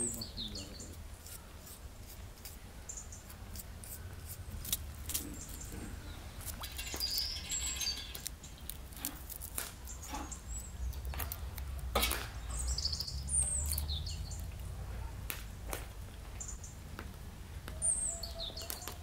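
Small birds chirping in short, repeated high phrases, with scattered light clicks of a knife cutting onion and garlic held in the hand, over a steady low rumble.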